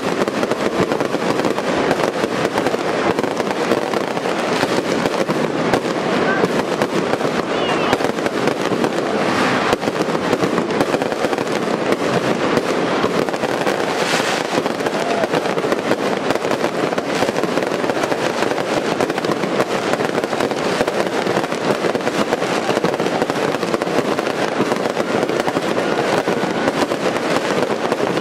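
Daytime fireworks going off in a continuous, dense barrage of crackling bangs without let-up, with a few sharper cracks standing out around ten and fourteen seconds in.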